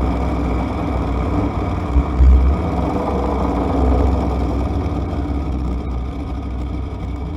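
Steady low rumble of a vehicle on the move, with road and wind noise, swelling briefly about two seconds in and easing a little near the end.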